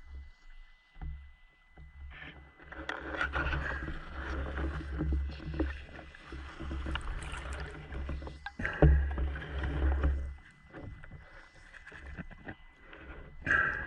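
Muffled underwater noise picked up by a diver's camera: water rumbling and rustling against the housing in two long stretches, with scattered knocks, the loudest sharp knock about nine seconds in. A faint steady high tone runs underneath.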